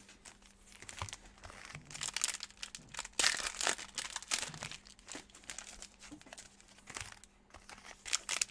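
Plastic wrappers of trading card packs crinkling and tearing as they are opened by hand, in irregular bursts, busiest about three to four seconds in.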